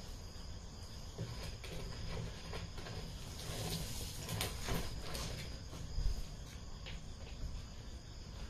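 Faint scraping, rustling and light taps of a clear plastic water can and snake tongs against a tiled floor as a Russell's viper is steered into the can, with one sharper knock about six seconds in.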